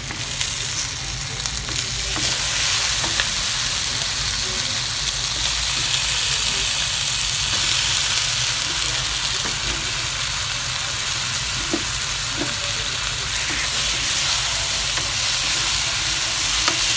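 Prawns frying in hot oil and curry paste in a wok, a steady loud sizzle, with a wooden spatula stirring and scraping. The sizzle gets louder about two seconds in and then holds.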